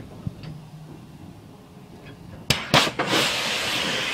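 Two sharp metallic clanks about two and a half seconds in, then a loud rush of air that slowly fades. This is a railway car's air brake hoses parting from the locomotive's as the train is uncoupled, and the brake line vents.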